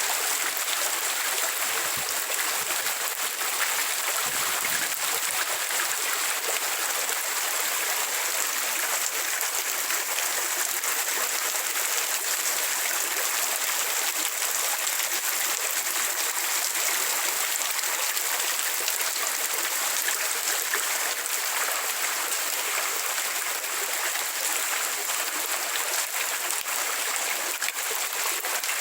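Steady rain falling, an even hiss with many fine drop ticks and the trickle of running water, unchanging throughout.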